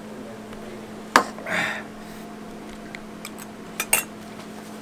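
Sharp knocks and clinks of a metal drink can and utensils handled on a tabletop: one hard knock about a second in followed by a brief hiss, then a few light clicks and a quick double knock near the end, over a steady low hum.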